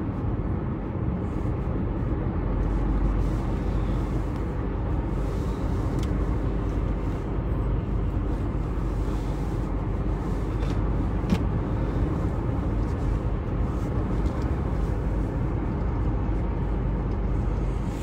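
Steady engine and tyre noise of a moving car heard from inside its cabin, with a couple of faint ticks.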